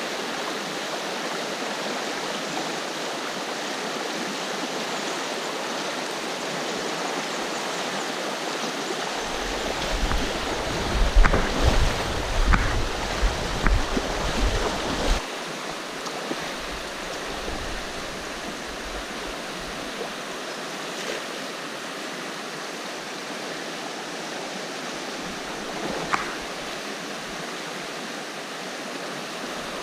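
Flowing river water rushing steadily over the riverbed. A few seconds in, a stretch of low rumble with several sharp knocks rises over it for about six seconds, and there is a single click near the end.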